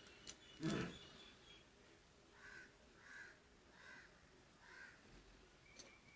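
Faint bird calls in the background, four in a row about three-quarters of a second apart, after a click and a short knock near the start; another click comes near the end.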